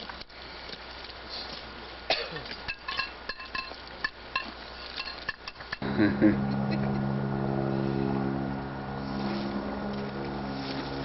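Scattered clicks and light clinks, then about six seconds in a steady low motor drone starts and runs on evenly.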